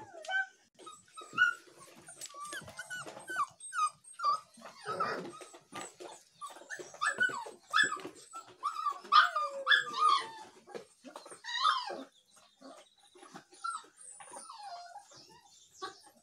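Spanish mastiff puppies whimpering and yipping: many short, high calls one after another, some sliding down in pitch.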